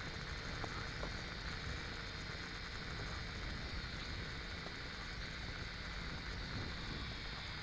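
Faint, steady outdoor background noise: a low wind rumble on the microphone under a constant high hiss, with no distinct events.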